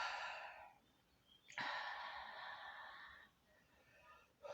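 A woman breathing close to the microphone: a short breath out at the start, then a click and a longer, heavier breath out from about a second and a half in.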